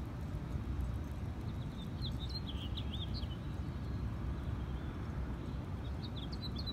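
Outdoor ambience: a steady low rumble, with a small bird chirping in quick twittering phrases, first about one and a half seconds in and again near the end.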